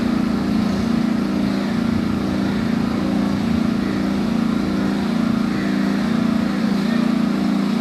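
A motor vehicle engine running at a steady pace, a constant low hum with no change in speed.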